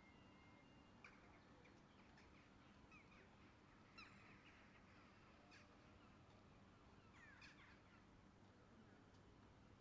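Faint bird calls: a few short, downward-sliding calls in clusters about one, three, four and seven and a half seconds in, over a low steady hum.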